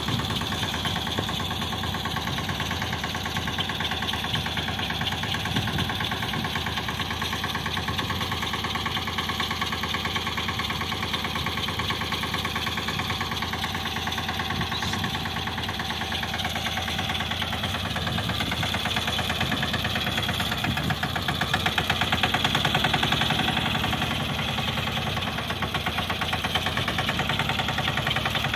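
Field Marshal mini tractor's small diesel engine running steadily with a knocking diesel beat while it pushes a heap of straw across the field. It gets a little louder about three-quarters of the way through.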